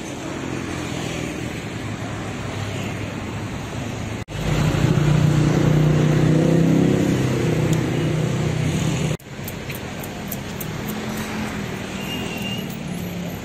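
Outdoor street ambience with motor traffic. The sound breaks off abruptly twice, about four and nine seconds in. Between the breaks a vehicle engine runs louder and closer, with a steady low hum.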